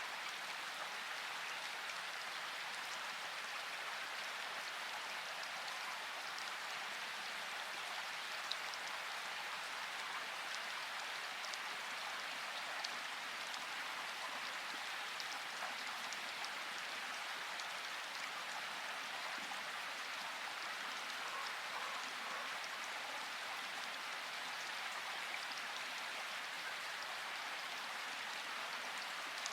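Water falling or running steadily: an even hiss with a few faint ticks scattered through it.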